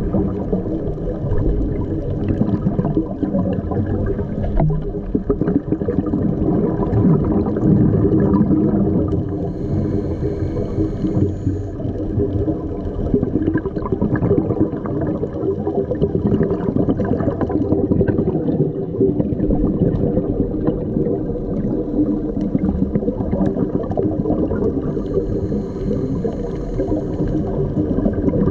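Underwater sound picked up by a diving camera: steady gurgling water noise over a continuous low drone.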